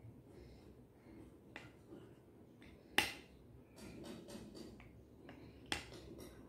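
Small wooden rings clacking against each other and against the wooden pegs and base of a counting board as they are stacked: a handful of sharp clicks, the loudest about three seconds in.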